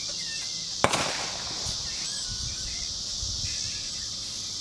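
A single AK-47 rifle shot about a second in, with a short echo trailing after it, over a steady high insect buzz.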